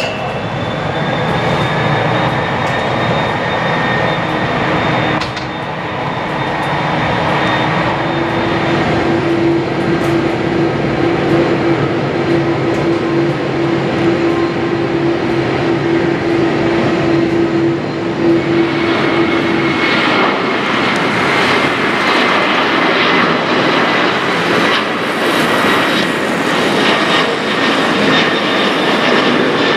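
Airbus A330-300's GE CF6-80E1 turbofan engines running: a steady jet roar with a high whine. The sound shifts abruptly about five seconds in and again near twenty seconds, and it turns rougher and crackling toward the end as the jet climbs out.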